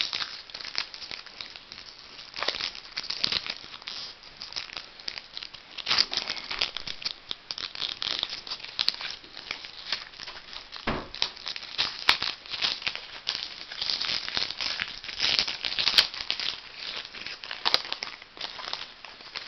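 Foil wrapper of a trading-card pack crinkling and crackling as it is opened and handled, with one dull knock about halfway through.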